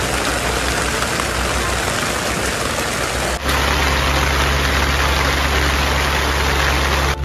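Heavy rain pouring down in a dense, steady hiss over a constant low rumble, broken by a brief sudden drop about three and a half seconds in.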